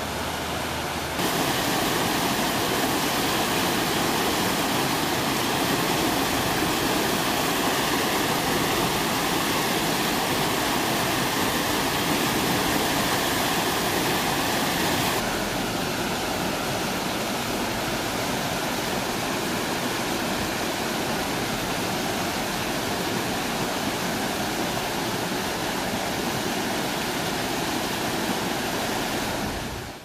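Steady rushing of a fast mountain stream tumbling over rocks and small drops. The sound jumps louder about a second in, drops back a little about fifteen seconds in, and fades out at the very end.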